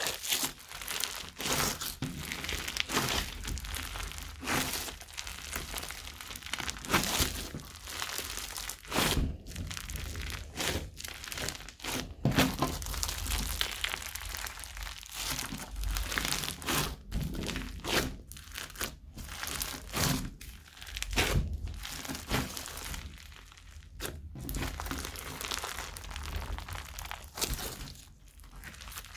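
Hands squeezing and kneading crunchy slime mixed with plastic bag pieces and foam bricks: continuous crinkling and crunching with many sharp, irregular crackles.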